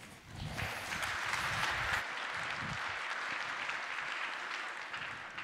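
Audience applauding, coming in about half a second in and fading out near the end.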